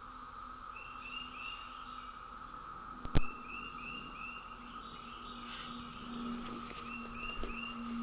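Steady, droning chorus of periodical cicadas in the trees, with a bird calling over it in short runs of three or four quick notes, three times. A single sharp knock about three seconds in.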